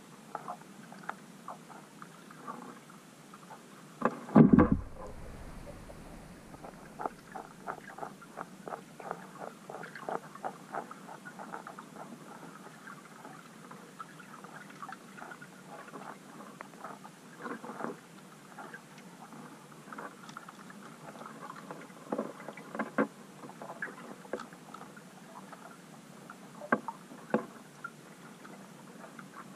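Underwater sound in a weedy lake where bream and tench are feeding: irregular small clicks and ticks throughout, with one loud, deep thump about four seconds in and a few sharper clicks later on.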